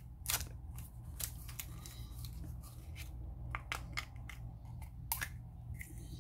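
Scissors cutting and prying at a small plastic toy package: scattered snips, clicks and scrapes, the sharpest about a third of a second in and again about five seconds in, over a steady low hum.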